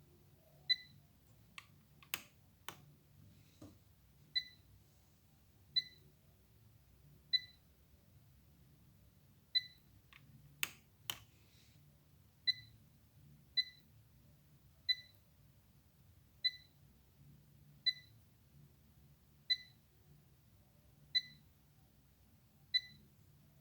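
Korg Triton synthesizer sounding a string of short, high chirps, one about every second and a half, with a few sharp clicks around two seconds and eleven seconds in.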